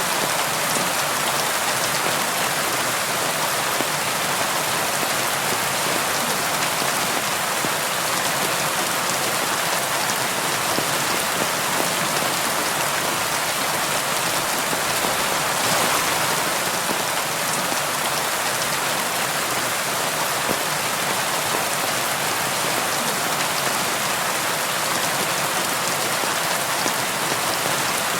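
Steady rain falling on window glass, an even hiss of drops with a brief swell about halfway through.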